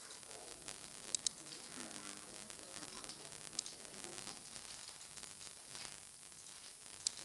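Steady hiss from the recording microphone, with a few sharp computer mouse clicks: a quick pair about a second in, one near the middle and one near the end.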